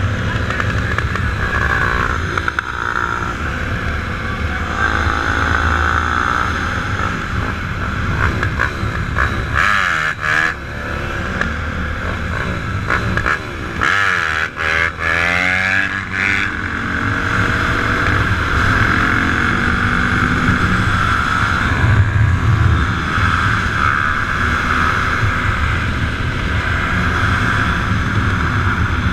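Dirt bike engines running, with revving that rises and falls in pitch around ten and fifteen seconds in.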